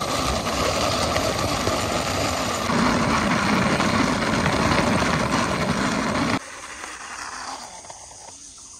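Plastic wheels of a toy dump truck rolling over a rough concrete wall top as it is pushed by hand, a steady grinding rumble. It grows louder about three seconds in and stops abruptly a little past halfway, when the truck comes to rest, leaving only faint outdoor background.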